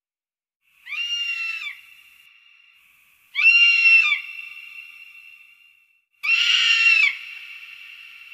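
An eagle calling: three loud, high screams of about a second each, spaced about two and a half seconds apart. Each scream trails off into a fading ring.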